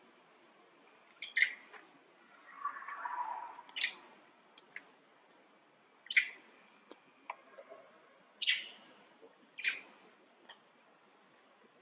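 Forest ambience: a steady, high insect trill under about five or six short, sharp chirping calls spaced a second or two apart. A short hoarse noise about three seconds in.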